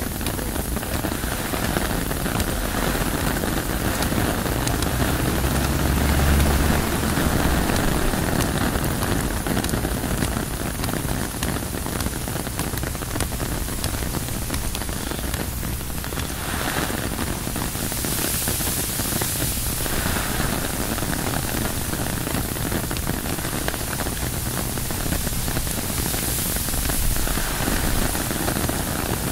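Steady rain on a tent's fabric, with wind, heard as an even hiss; a deeper rumble swells about six seconds in.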